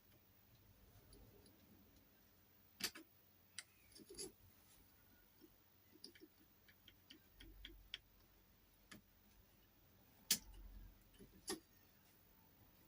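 Faint, irregular metal clicks and ticks of a lock pick working the levers inside an SMP seven-lever dual stump safe lock, feeling for levers that are in the wrong place. There are a few sharper clicks and a quick run of lighter ticks about six to eight seconds in.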